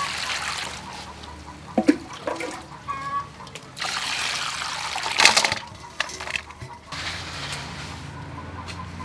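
Water poured into a metal bowl of dried bamboo shoots, splashing over the pieces as a hand stirs them. There is a pour at the start and a louder one from about four to five and a half seconds in.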